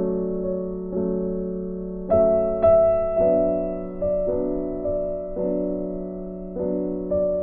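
Background music: slow, soft electric piano chords, a new chord struck about once a second and left to ring and fade.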